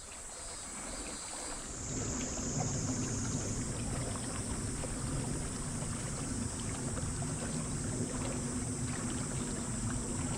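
Moka Railway diesel railcar passing, a steady low engine hum that swells about two seconds in and then holds, with a thin steady high whine above it.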